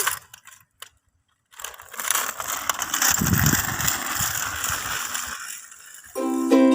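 Kick scooter's small wheels rolling and rattling over rough ground, with a low rumble swelling midway and fading out; ukulele music starts near the end.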